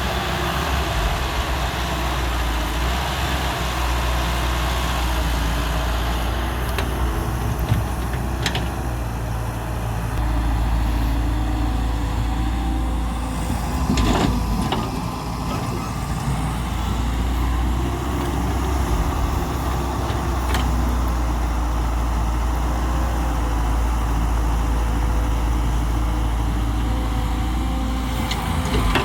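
Diesel engine of a Hyundai Robex 1300W wheeled excavator running steadily while it loads mud, with a few short knocks.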